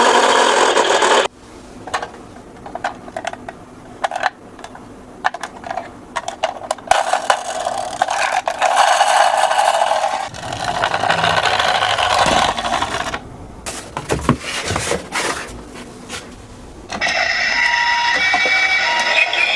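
Small plastic toy cars rattling, clicking and scraping as they run down a slope. Loud electronic toy sounds play at the start and come back near the end, with short repeated beeps.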